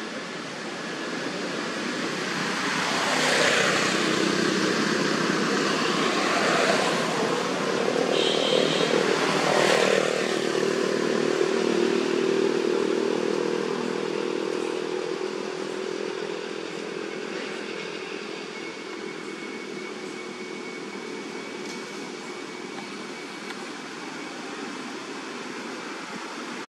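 A motor engine passing by: it swells to its loudest over several seconds, then fades slowly with a steady low hum.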